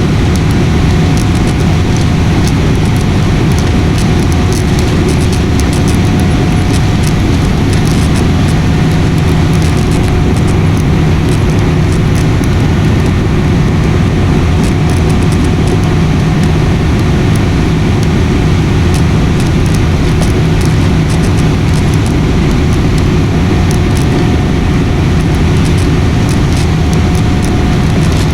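Airliner cabin noise in flight: a loud, steady drone of engines and rushing air with a constant low hum.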